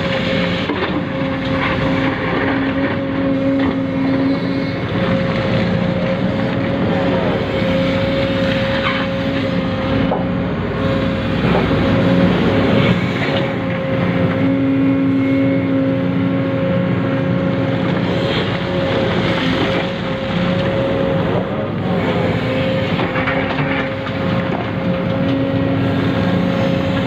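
Electric motors and gearboxes of radio-controlled model construction machines running: a steady high whine over a lower drone that rises and falls, with occasional clicks and knocks.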